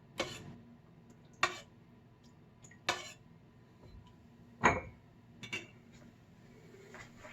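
A spoon clinking against a cooking pot of soup: five separate knocks with a short ring, about one every second or so, the one near the middle the loudest.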